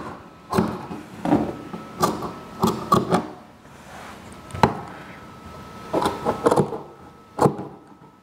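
Large red-handled tailor's scissors snipping through cotton fabric as a ragged seam allowance is trimmed level. Several short, sharp cuts come at irregular intervals, with a pause of about a second near the middle.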